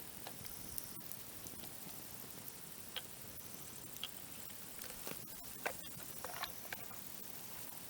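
Dry branches burning in a campfire: sparse crackles and sharp pops over a faint steady hiss, coming more often around the middle of the stretch.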